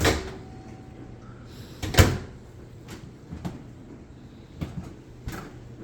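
Soft-close kitchen cabinets being opened and shut: two solid knocks about two seconds apart, the second the loudest, then several lighter clicks.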